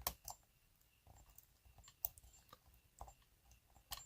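Faint, scattered metallic clicks of a hook pick and tension wrench working the pins inside an Emhart KIK lock cylinder, a few sharp ticks spread over the seconds with the loudest at the start and about two seconds in.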